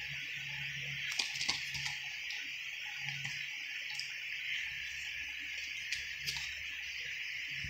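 Light clicks and taps of a plastic Blu-ray case being handled and turned over in the hand: a cluster about a second in and two more near six seconds, over a steady background hiss.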